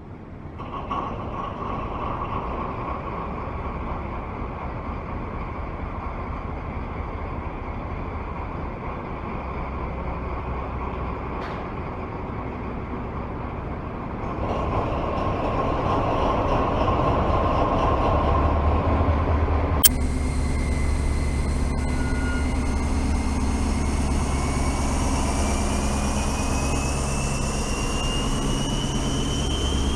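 Model train running along the layout track toward the microphone: a steady rumble of motor and wheels on the rails that grows louder about halfway through. A sharp click comes about two-thirds in, after which a low hum and a whine rising slowly in pitch join the rumble.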